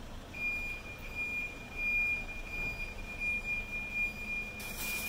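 A steady high-pitched electronic whine, one unwavering tone that starts about a third of a second in, over a low background rumble; a brief hiss comes in near the end.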